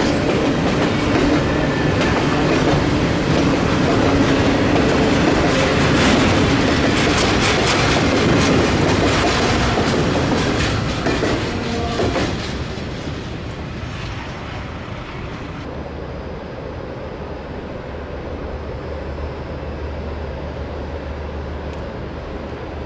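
Double-stack intermodal container train rolling past, its wheels clicking steadily over the rail joints. The sound drops away about halfway through as the last car passes, leaving a quieter steady rumble.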